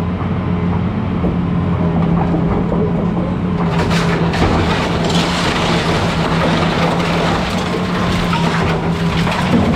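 A 200-size excavator's diesel engine running steadily under load. From about four seconds in there is continuous cracking and crunching as wood and building debris break apart during demolition of the house.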